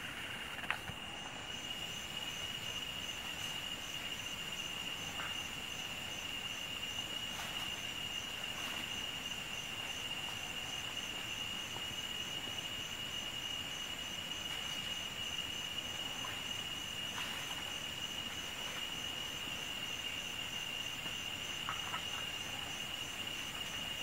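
Steady high-pitched insect drone of the rainforest, with a fainter chirp above it pulsing about twice a second and a few faint clicks.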